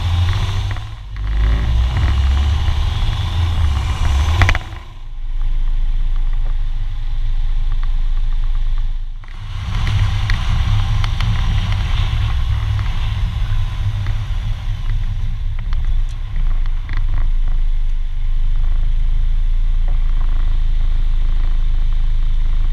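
Wind and road noise of a moving Audi A4 B9 Avant g-tron, picked up by a camera mounted behind the front grille: a heavy, steady low rumble that dips briefly about a second, four and a half and nine seconds in.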